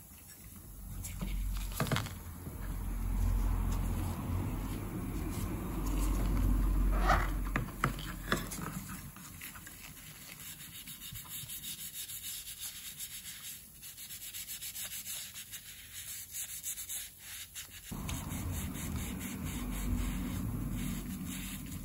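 Wet sponge scrubbing a titanium coin holder by hand, a run of quick rubbing strokes on the metal with a few small knocks.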